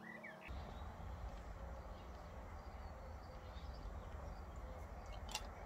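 Outdoor garden ambience: a steady low rumble with faint bird chirps, and a sharp click near the end. Background music stops about half a second in.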